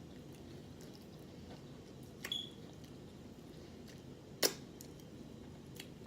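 Low steady room noise with two short sharp clicks, a small one about two seconds in and a louder one about four and a half seconds in.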